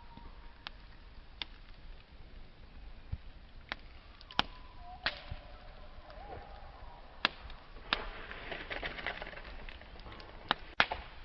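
Wood campfire crackling: scattered sharp pops and snaps over a low hiss, with a dense patch of crackling about three-quarters through and the loudest snaps near the end.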